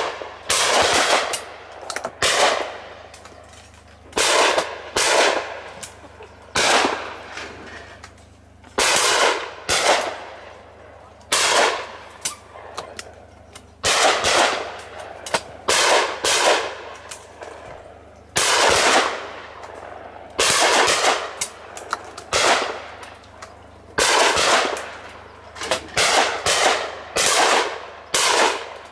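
Shotguns firing at clay targets again and again, a shot every second or so and often in quick pairs, each trailing off in a long echo.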